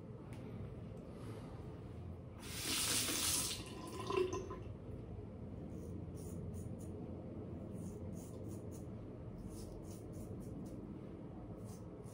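Straight razor scraping through lathered stubble on the chin and neck in short repeated strokes. About two and a half seconds in, water runs for about a second, followed by a sharp click.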